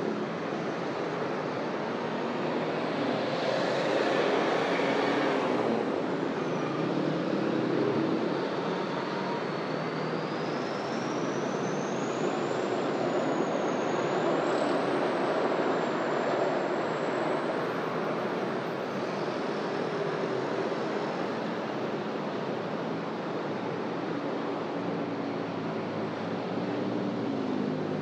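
Busy city street traffic: motor vehicles passing and running, swelling a couple of times. A thin high tone rises and wavers over the noise for about ten seconds in the middle.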